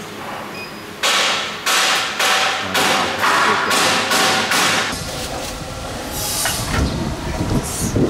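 Compressed-air pulses from an automatic powder feed center: a rapid series of loud hissing blasts, about two a second, beginning about a second in and stopping about five seconds in, followed by lower rumbling and handling noise.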